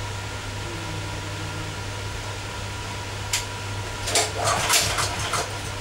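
A sharp click, then about a second and a half of irregular rattling and scraping as hands work on a Honda GX390 frame generator that is not yet running.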